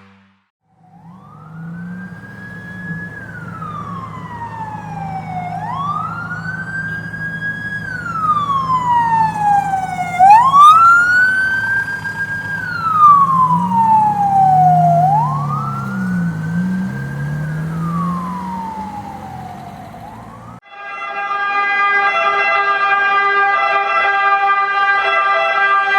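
Emergency vehicle siren in wail mode, rising quickly and falling slowly about every three seconds. It grows louder to a peak about ten seconds in and then fades as it passes. About twenty seconds in it cuts off abruptly, and a steady chord of held tones starts.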